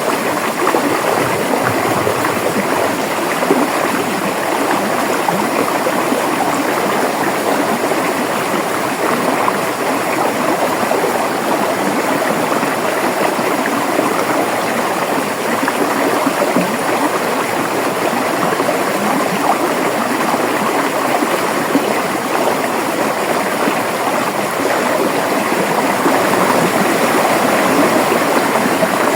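A river flowing over rocks: steady rushing and gurgling water, even in level throughout.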